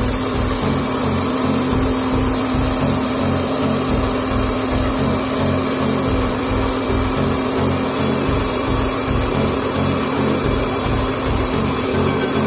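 Mini hot-air popcorn machine running: its blower fan gives a steady whirring rush with a low motor hum.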